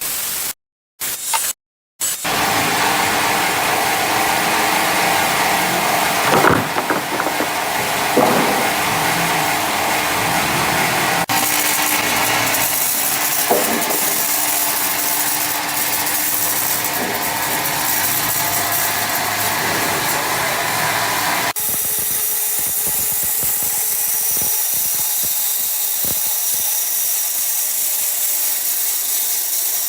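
Sawmill saw cutting through an ironwood log: a steady, loud, noisy run with a few louder scrapes about six to eight seconds in. The sound changes suddenly twice, and in the last third it is thinner and hissier with little low end.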